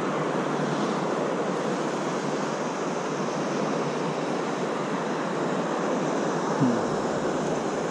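Steady rush of sea surf breaking and washing in, mixed with wind.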